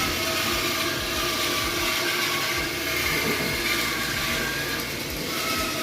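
Steady mechanical running noise with faint wavering whines, without a break or change in level.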